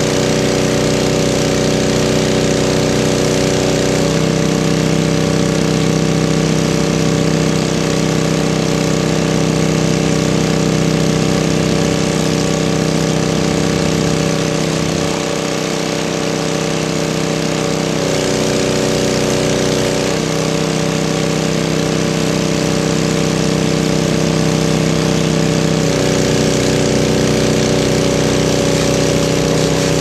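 Small gasoline engine of a fire skid unit running its water pump steadily, its note shifting several times as the load changes.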